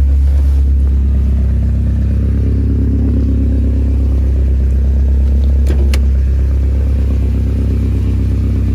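1987 Alfa Romeo Spider Quadrifoglio's twin-cam four-cylinder engine idling steadily while warming up after a cold start. The exhaust is louder than stock because the stock muffler has been removed, leaving only a glass pack after the axle. A couple of short clicks come about six seconds in.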